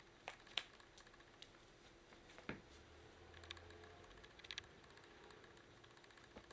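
Faint, scattered clicks and taps as a pied currawong pecks at and tugs a cotton sock on a rug, its beak and claws knocking against the floor, about half a dozen times.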